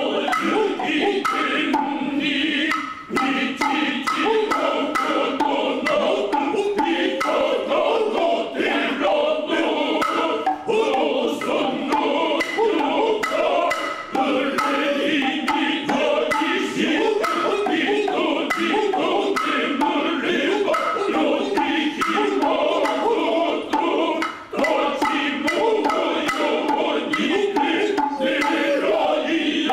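Noh chorus (jiutai) of male voices chanting in unison, accompanied by the hayashi's shoulder drum (kotsuzumi) and hip drum (otsuzumi), with sharp drum strokes falling through the chant.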